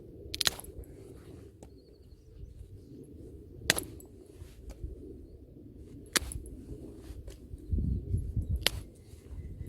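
Four sharp knocks about two and a half seconds apart, typical of a stone striking wood to split firewood, over a low steady rumble.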